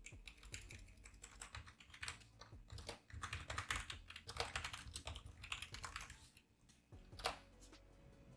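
Fast typing on a computer keyboard, a quick run of key clicks that pauses near the end before one louder keystroke.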